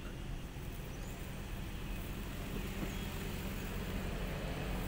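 Steady low motor hum, like an engine running, slowly getting louder, with a couple of faint short high chirps.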